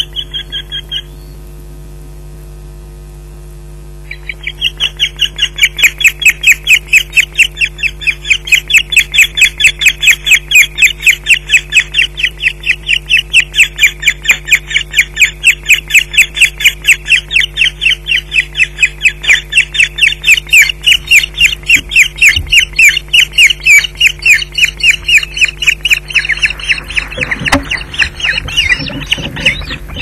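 Osprey alarm calling at the nest: a rapid, insistent string of sharp, high calls against an intruder. The calls break off about a second in, resume about three seconds later and keep going. Near the end, close flapping and scuffling comes in as a bird lands on the nest.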